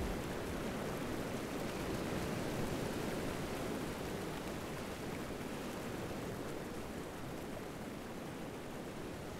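Steady rushing noise with no tune or beat, easing slightly in level toward the end.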